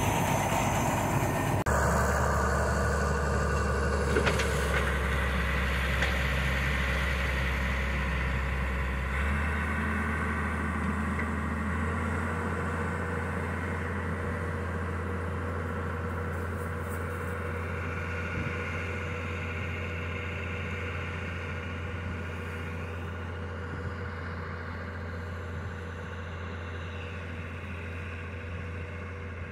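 Farm tractor engine idling steadily, with a small change in its low note about nine seconds in, growing gradually quieter.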